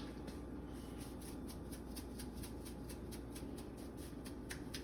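Salt grinder being turned to grind Himalayan salt: a rapid, even run of scratchy clicks, about six a second, over a low steady hum.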